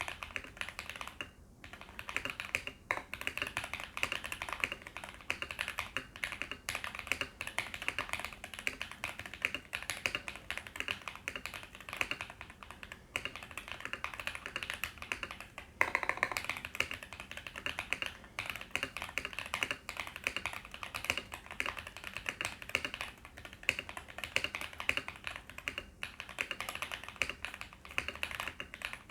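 Continuous fast typing on a Kira96 mechanical keyboard with KTT cabbage tofu linear switches and PBT Cherry-profile keycaps: a dense stream of key clicks, with a couple of brief pauses about a second or two in and a louder stretch about halfway through.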